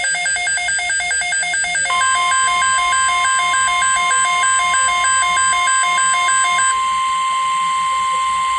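NOAA Weather Radio alert tones announcing a severe thunderstorm watch. A rapid electronic beeping alternates between two pitches at about three beeps a second. About two seconds in, the steady 1050 Hz warning alarm tone joins it, and it carries on alone after the beeping stops near the end.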